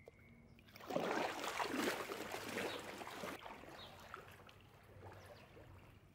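Pool water splashing and sloshing as a person moves through a swimming pool: a run of swishing splashes starting about a second in, then fainter lapping and small splashes in the second half.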